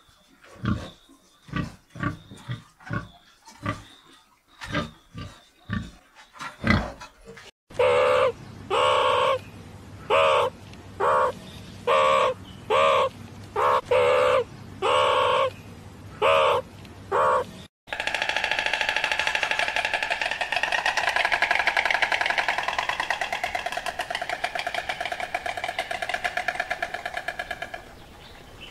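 Animal calls in three edited runs: short repeated grunts, then about a dozen separate calls, then a long unbroken stretch of calling that drifts up and down in pitch.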